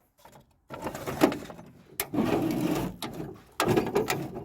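Drawers of a small toolbox being slid open and shut, scraping and rattling in several spells with clicks as they stop.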